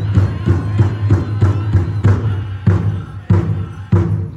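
Powwow drum struck in unison by a group of drummers, a steady beat of about three strokes a second with singing over it; a little after two seconds in the strokes space out to roughly one every half-second or more.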